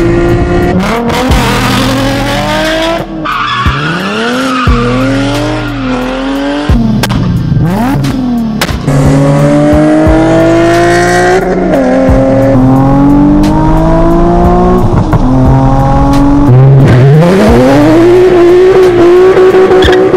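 Sports car engines accelerating hard through the gears. The pitch climbs during each pull and drops at each shift, with abrupt cuts between clips. Near the end an engine revs up to a high note and holds it.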